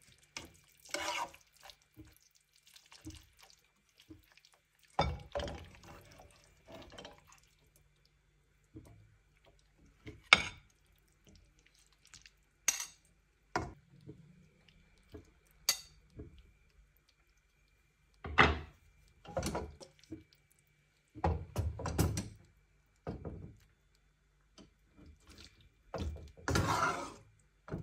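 A metal utensil clinking and scraping against a metal frying pan and a ceramic plate as pasta is lifted out and served. The knocks come one at a time every second or two, some as sharp, bright clinks and some as duller thunks and scrapes, over a faint steady hum.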